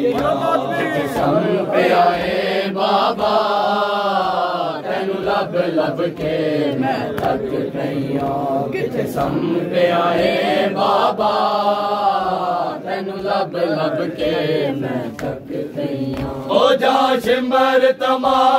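A group of men chanting a Punjabi noha, a Shia mourning lament, together in long rising and falling lines. Sharp hand slaps on the chest (matam) keep a steady beat under the chant, about one a second.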